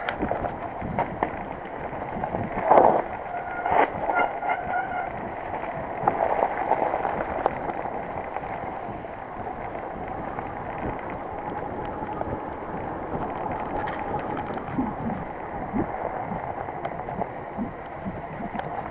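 Mountain bike ridden fast along a wet, overgrown singletrack: a steady rush of tyre and wind noise with the bike rattling over the rough trail, loudest with a couple of knocks about three and four seconds in.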